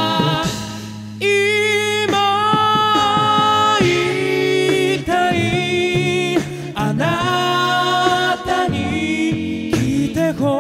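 Male a cappella group singing a slow song in close harmony through handheld microphones: held chords over a sung bass line, with sharp vocal-percussion hits. The sound dips briefly about half a second in, and the full chord comes back just after one second.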